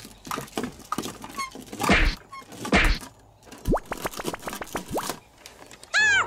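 A few hollow thunks with clattery clicks between them, the loudest about two and three seconds in. A quick rising swoop comes just before four seconds, and a short bright chirp near the end.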